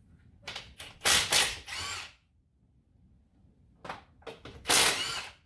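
Handheld power tool running in two short bursts, about a second and a half each, its motor whirr rising and falling in pitch.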